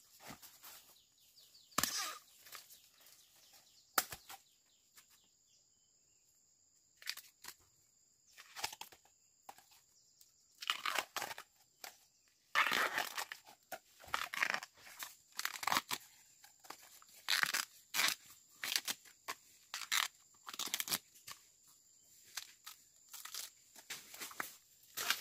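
Irregular bursts of rustling and tearing of plant material, with a few sharp clicks, over a faint steady high-pitched tone.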